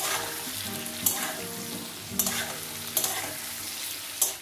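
Spatula stirring pumpkin pieces in a kadai of hot, sizzling oil, with about five sharp scrapes of the spatula against the pan, roughly one a second.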